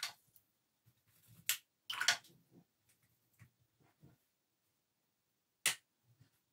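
Small handling sounds of watercolour painting: brief swishes of a wet brush at the start and about two seconds in, then a few light ticks of brushes against the metal palette and table, with one sharp click near the end.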